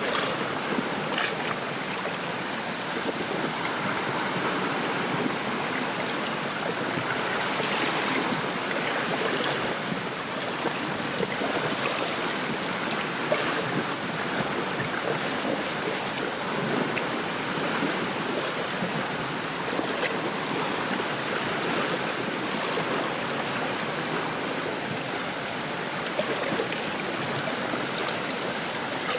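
Small waves lapping at a lake shore while gusty wind rustles through a reed bed, a steady wash of water and wind.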